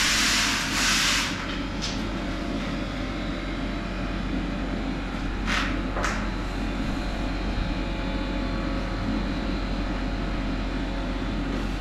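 A steady machine drone with a strong low hum, after a loud hissing burst in the first second or so, and a few sharp clicks along the way.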